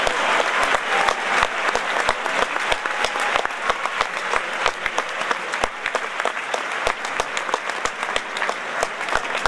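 Audience applauding: many hands clapping together in a dense, even clatter that eases off a little near the end.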